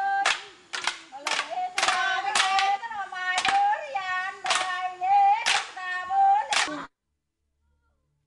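Yapese stick dance: a group chanting together on long held notes, punctuated by sharp clacks of the dance sticks struck together every half second to a second. It cuts off suddenly about seven seconds in.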